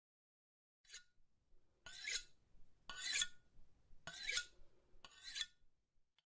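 Metal scissor blades scraping, five strokes about a second apart, each ending in a brief high metallic ring.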